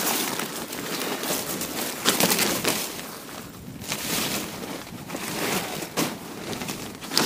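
Nylon fabric of a Polar Bird pop-up cube tent rustling and flapping as it is pulled open, with a few sharp clicks.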